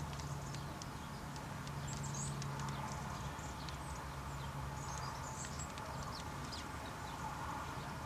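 Chaffinch pecking at birdseed on a wooden stump: a run of small, irregular ticks and taps. Short high chirps from other small birds come through a couple of times, over a steady low hum.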